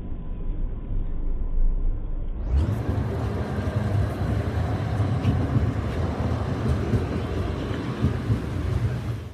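Tram running past on wet street rails: a steady rolling noise with a low hum, which turns much fuller and brighter about two and a half seconds in.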